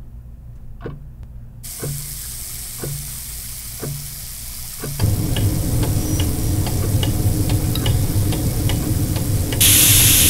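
Twin-bell alarm clock ticking about once a second, under a hiss that grows. About five seconds in, a louder machine hum with fast clicking takes over, and near the end a loud sizzling hiss joins it.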